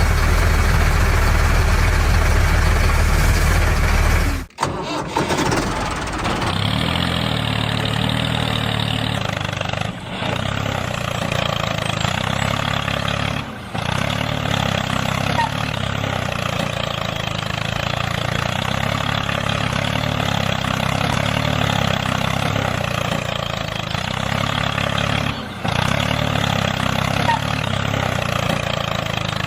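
Small engine running steadily. About four and a half seconds in the sound breaks off and resumes as a different, lighter running note that carries on with a few brief dips.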